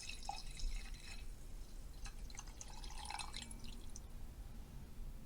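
Faint water dripping and splashing sound effect: scattered droplet splashes in two short spells, dying away about four seconds in.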